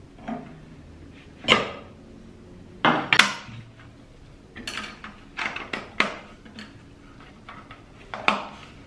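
Irregular sharp metallic clinks and clanks, about eight in all, from steel wrenches and metal parts handled on a cast-iron router table after the router bit's collet nut has been tightened.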